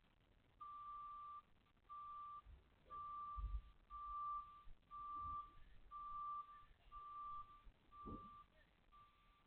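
A reversing alarm beeping at one steady pitch, about once a second, nine beeps in all, with a couple of low thuds among them.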